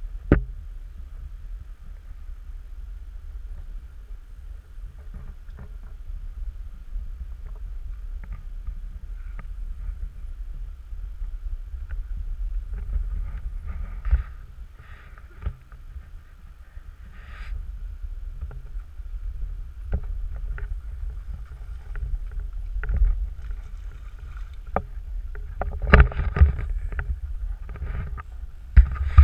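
River water lapping and sloshing against the rocky bank close to the microphone, over a steady low rumble. Scattered knocks and taps run through it, the loudest a cluster about 26 seconds in.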